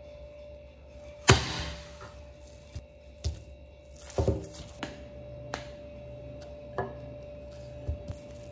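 A handful of knocks and thumps as slabs of scone dough are set down and pressed on a wooden board and a wooden rolling pin is handled on it. The loudest knock comes about a second in, the rest spread over the following seconds.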